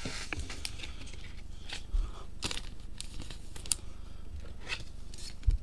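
Trading cards and their wrappers being handled: scattered light clicks and crinkles, with a soft thump about two seconds in and another near the end.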